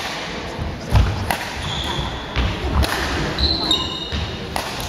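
Badminton hall sounds: sharp racket-on-shuttlecock hits and thuds of feet on the wooden court floor, echoing in a large hall, with voices in the background. A couple of short high squeaks sound in the middle.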